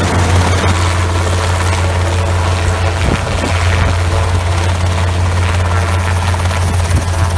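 Robinson R22 Beta II helicopter hovering low and settling in to land: a steady, loud drone of its two-blade rotor and four-cylinder Lycoming piston engine.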